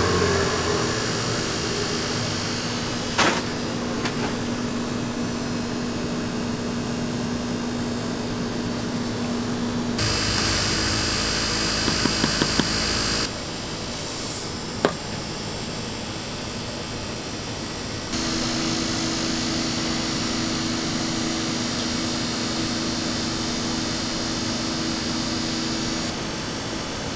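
Cotton candy machine's spinning head running with a steady motor hum as sugar floss is spun. The hum's pitch and level change abruptly a few times. There are a couple of single sharp clicks, one about three seconds in and one near the middle.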